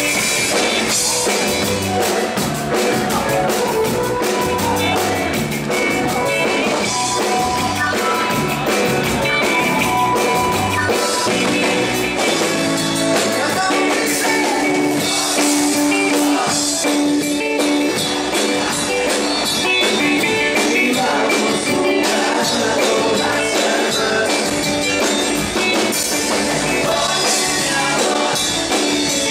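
Live dance band playing an upbeat song, with drum kit and a steady beat.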